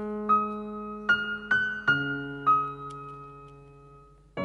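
Background piano music: a run of notes and chords struck in the first two and a half seconds, the last left to ring and fade.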